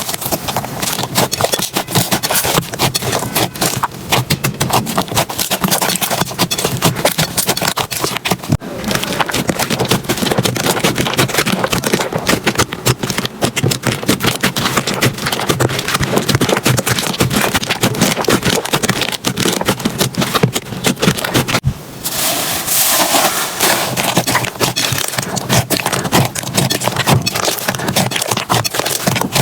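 Slime being squeezed and pressed by hand, giving a dense run of small crackles and pops. The sound breaks off briefly about three-quarters of the way through, then carries on.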